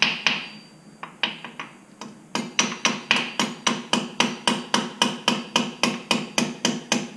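Small hammer tapping a brake-pad retaining pin through a C7 Corvette Stingray's brake caliper, driving it through the pads and the spring retainer. A few taps with short pauses, then a steady run of light metallic taps about four a second from about two and a half seconds in.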